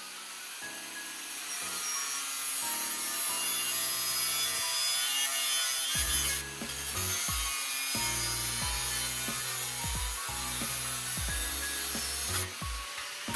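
Angle grinder with a thin cutoff wheel slicing lengthwise through rectangular steel tube, a steady high grinding hiss with short breaks about six seconds in and near the end.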